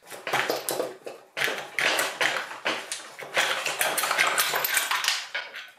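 Aluminium cylinder block of a Suzuki Hayabusa 1300 four-cylinder engine being rocked and worked up off its pistons by hand: continuous metallic scraping and clinking, with a short pause about a second in.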